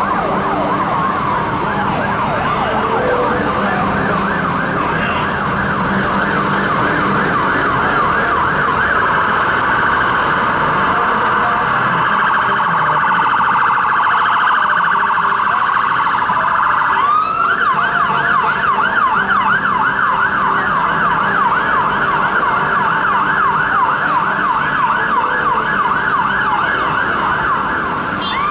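London Fire Brigade emergency siren on a rapid yelp: a fast rising-and-falling sweep repeating several times a second. About two-thirds of the way through it breaks off for one rising sweep, then the yelp starts again. A low traffic rumble runs underneath.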